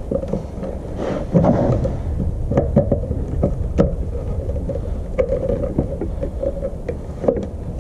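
Scattered light clicks and knocks of a grey PVC junction box being handled and pushed onto a PVC conduit riser, with wires being fed into it, over a steady low rumble.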